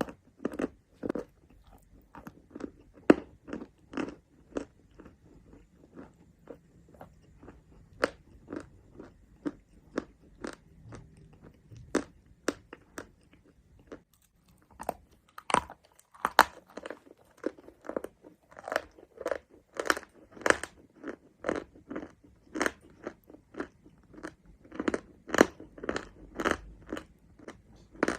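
A person biting and chewing mountain chalk, a run of sharp, irregular crunches about two or three a second, with a short pause about halfway and denser crunching after it.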